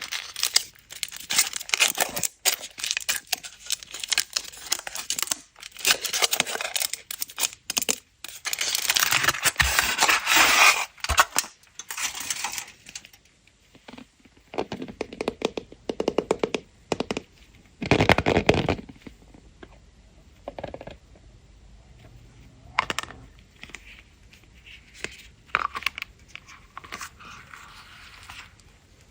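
Foil wrapping on Kinder Surprise chocolate eggs being crinkled and torn open by hand. The crackling is dense for about the first thirteen seconds, then becomes sparser rustles and small sharp ticks with quiet gaps between them.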